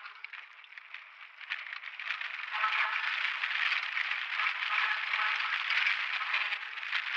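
Downhill mountain bike rattling and its tyres scraping over a rough, rutted dirt trail, a thin clattering noise with no bass that grows louder about two and a half seconds in.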